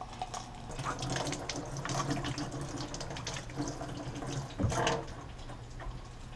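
Kitchen tap running into a stainless-steel sink while hands are washed under the stream. A short burst of voice comes about three-quarters of the way through.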